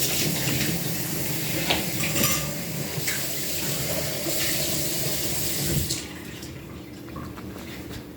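Kitchen tap running into a sink, with a few light knocks, shut off about six seconds in.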